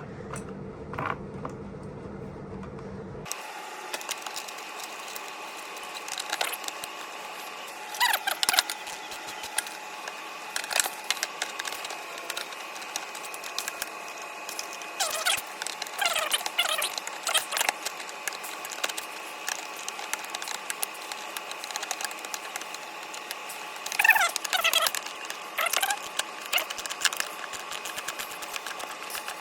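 Intermittent metallic clicks, rattles and scrapes of hand tools and bike parts being worked on, with a few louder clusters, over a faint steady hum.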